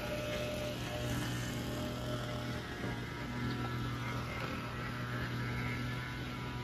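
A steady low hum with faint sustained tones over it.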